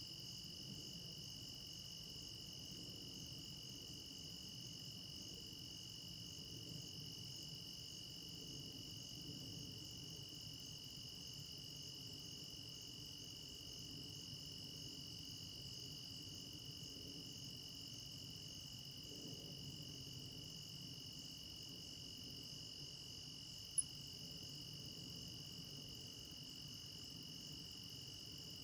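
Crickets and other field insects singing in a steady chorus, holding two high pitches. Near the end there is a single brief sharp click.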